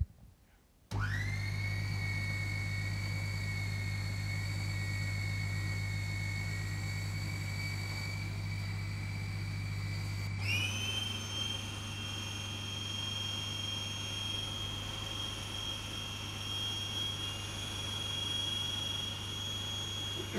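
Electric food processor running steadily as it blends an ice-cream mixture, with a high motor whine. It starts about a second in, and the whine steps up in pitch about halfway through.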